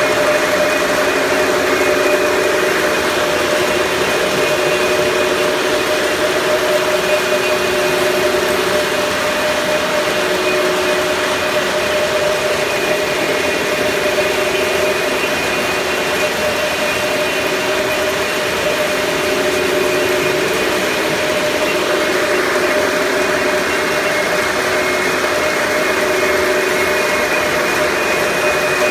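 A steady machine drone with a constant hum running through it, even in level throughout.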